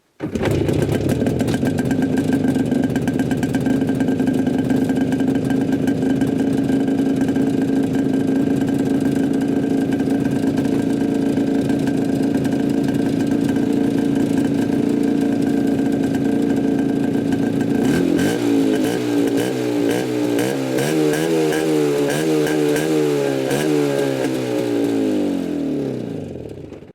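IZh Jupiter-5 two-stroke twin motorcycle engine running with the baffles pulled out of its mufflers, so the exhaust is open. It holds a steady note for about eighteen seconds, then is revved up and down several times, and the note falls away near the end.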